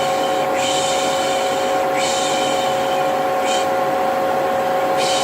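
Vacuum cleaner motor running steadily with a constant whine, under a voice shushing 'pış pış' in long hisses, one after another about every second and a half, with a pause near the end. This is the shushing used to lull a baby to sleep.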